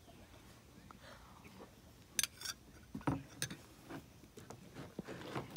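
Mostly quiet, with a few faint clicks and taps of a metal spoon against a small glass cup: a couple about two seconds in and a few more around three seconds in.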